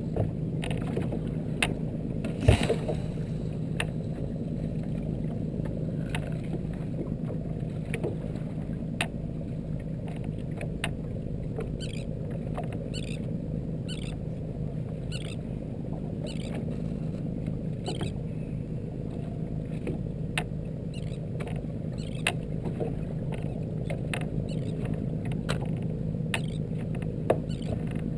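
Boat engine running steadily with a low drone, heard through the hull. There is a sharper knock about two and a half seconds in, and faint regular clicks through the middle stretch.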